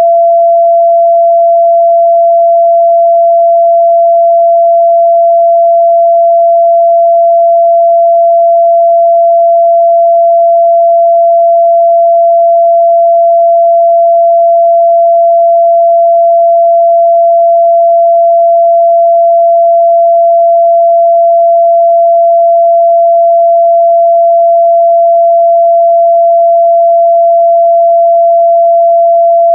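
Continuous 678 Hz sine-wave test tone, a single pure pitch held steady and loud, used to check a speaker's or headphone's midrange response.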